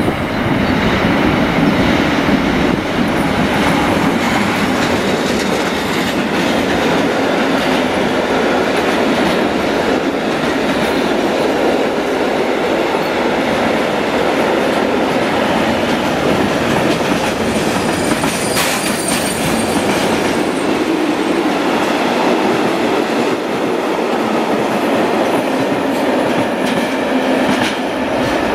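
Freight train of sliding-wall and tank wagons rolling past close by behind a Class 189 electric locomotive: a steady loud rumble of wheels on rail with clickety-clack over the rail joints. A brief high screech from the wheels comes about two-thirds of the way through.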